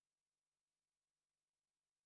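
Near silence: only a faint noise floor.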